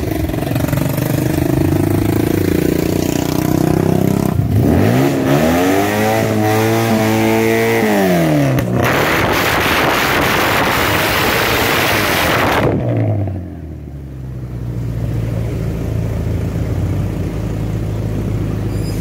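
Suzuki Carry minibus engine revved through a loud aftermarket exhaust. After a steady idle, the revs climb, hold and fall back, then several seconds of loud harsh exhaust noise cut off abruptly, and it settles back to a steady idle.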